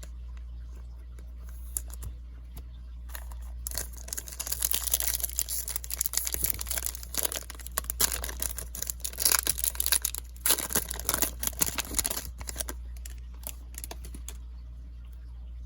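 Foil trading-card pack wrapper being torn open and crinkled: a long run of crackling from about three seconds in until about thirteen seconds.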